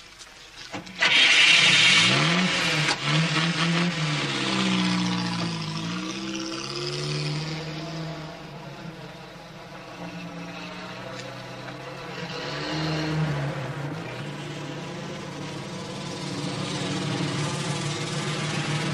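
Heavy truck engine revving as it pulls away over dusty ground, with a rush of tyres and grit. It starts suddenly and loudly about a second in, and the engine's pitch rises and falls several times.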